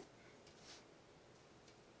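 Near silence: room tone with a faint click at the start and a faint soft hiss a little after half a second in.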